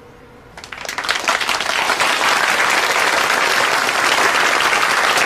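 Crowd applauding: a few claps begin just under a second in and quickly swell into steady, full applause.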